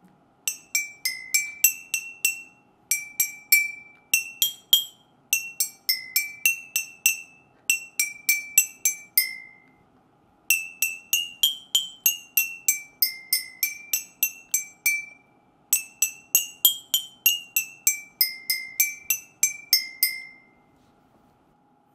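Water-tuned glass bottles tapped with a stick to play a melody: a quick run of bright, ringing clinks at a handful of different pitches, in phrases separated by short pauses. Each bottle's water level sets its note, with more water giving a lower pitch.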